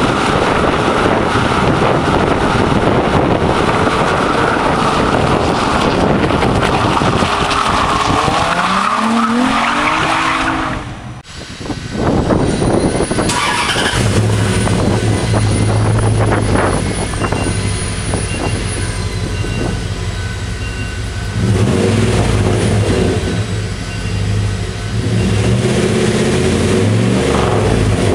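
Infiniti G35 coupe's 3.5-litre V6 with an aftermarket exhaust held at high revs with a loud rasp, the revs falling away about ten seconds in. Then a Dodge Ram 1500 pickup's aftermarket exhaust idling with a deep drone in an echoing wash bay, revved twice near the end.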